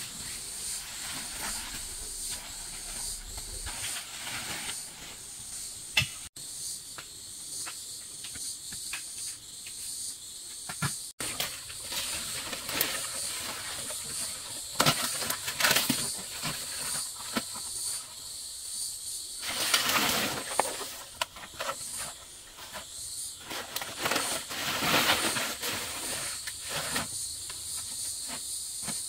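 A steady high hiss with irregular rustling and scraping noises over it, louder in a few bursts, and two very brief dropouts.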